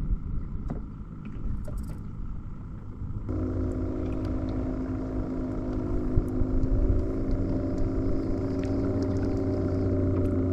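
Bow-mounted Minn Kota electric trolling motor running with a steady hum that comes on suddenly about three seconds in, over a low rumble.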